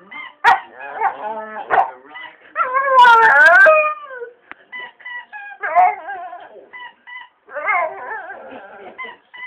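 A dog howling and whimpering in a run of pitched calls, the loudest a long rising-and-falling howl about three seconds in, with shorter yips and howls after it, over faint television audio.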